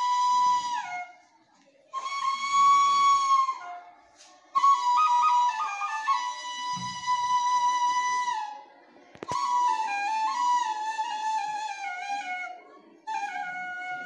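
G'ajirnay, an Uzbek end-blown bone flute, playing a slow melody in held notes grouped into phrases with short breath pauses between them, several phrases stepping down in pitch at their ends. A single sharp click about nine seconds in.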